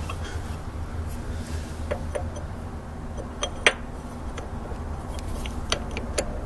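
A few light metallic clinks and taps as a brass punch is fitted through the rusted rear wheel hub against the seized free-wheeling axle pin of a Bolens 1050 tractor. The sharpest clink comes about three and a half seconds in. A steady low rumble runs underneath.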